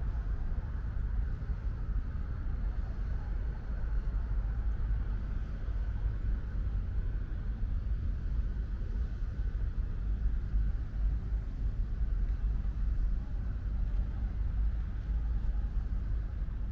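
Outdoor ambience in light rain: a steady low rumble with a faint even hiss above it, and no sudden sounds.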